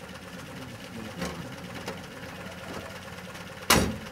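An engine idling steadily, with a few light knocks and one loud, sharp thump near the end.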